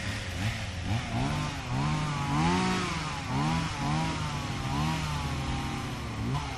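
Two-stroke chainsaw revving up and down repeatedly, its pitch rising and falling about five times.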